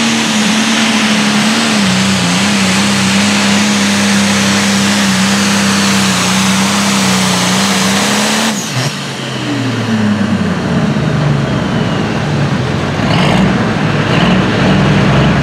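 John Deere Limited Pro Stock pulling tractor's turbocharged diesel engine at full throttle under heavy load as it drags the weight-transfer sled, holding a steady pitch. About eight and a half seconds in, the throttle is cut abruptly at the end of the pull and the engine winds down in pitch, then runs on unevenly at a lower speed.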